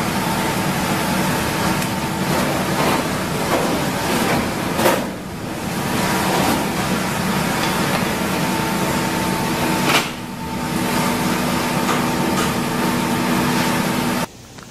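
Steady machine hum with a few held tones over a broad noise, like ventilation or refrigeration running in a workroom. It is broken by a sharp knock about five seconds in and another about ten seconds in, and cuts off suddenly just before the end.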